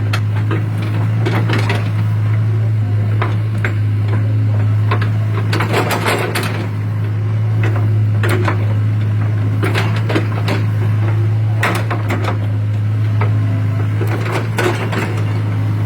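Hitachi excavator's diesel engine running with a steady low hum, under irregular knocks and clanks from the bucket digging soil.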